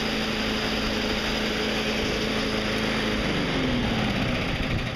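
Single-cylinder Briggs & Stratton overhead-valve lawn mower engine running steadily at throttle on its new ignition coil; about three seconds in its steady note breaks off and a falling tone follows as it slows down.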